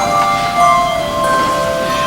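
Handbell choir ringing, several bells holding overlapping notes that ring on, with new notes struck in among them.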